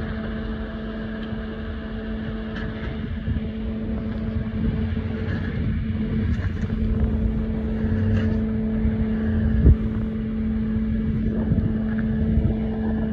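Engine of a crashed 2002 Chevrolet pickup running with a steady hum as the truck creeps up the ramps onto a float trailer, with a single heavy thump about ten seconds in.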